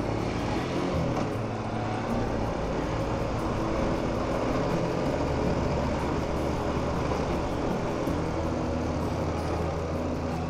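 Motorcycle running at road speed, its engine under a steady rush of wind and road noise.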